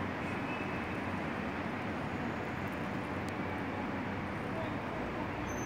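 Steady outdoor street background noise, like distant traffic, with indistinct voices mixed in.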